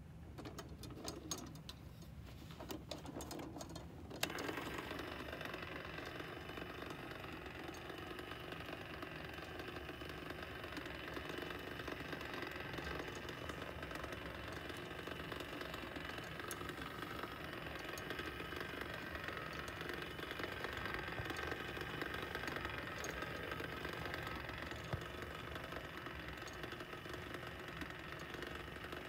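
A few handling clicks on the plastic base, then about four seconds in the battery-powered motor of a Form "S" kinetic sculpture starts and runs steadily, a small motor whirring as it drives the metal rods to and fro.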